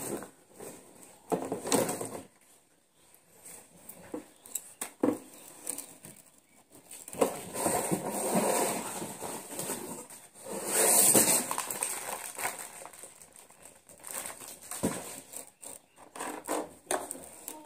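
Cardboard box and packaging being handled: irregular rustling and crinkling with scattered knocks and clicks as an appliance is pulled out of its box.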